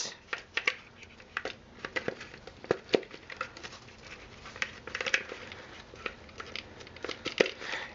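Plastic clicks, knocks and rustling as the suspension's corner fittings are bent and pushed into the slots of a 3M H-702R hard hat shell, one side after another. Irregular clicks, scattered through with a few louder snaps.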